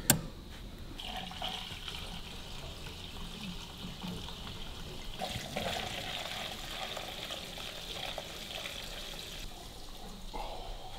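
Petrol pouring from a can into a plastic funnel in a car's fuel tank filler neck: a steady rush of liquid filling the tank, its tone shifting about five seconds in.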